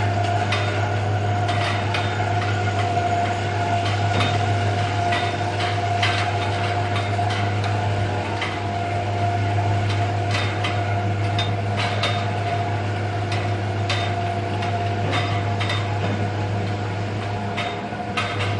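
Milking machine in a double-10 milking parlour running: a steady low hum with a steady whine above it, and frequent short, sharp clicks.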